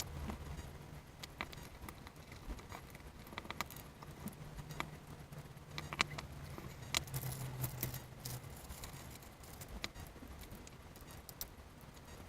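Small hard parts being handled: irregular clicks and light metallic clinks, busiest about halfway through, over a low steady hum.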